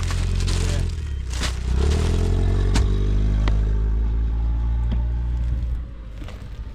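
A motor vehicle's engine running close by and speeding up, a low rumble that drops away about six seconds in, with a few light knocks and rustles as items are handled.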